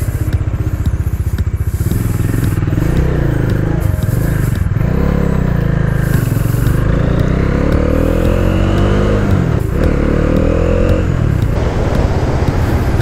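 Bajaj Dominar 400's single-cylinder engine under acceleration, its revs climbing and dropping back at gear changes about five and ten seconds in, with wind rushing over the microphone.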